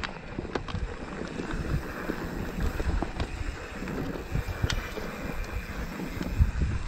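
Mountain bike rolling fast over loose rock and sand: tyres crunching and the bike rattling, with scattered sharp knocks, under steady wind noise on the microphone.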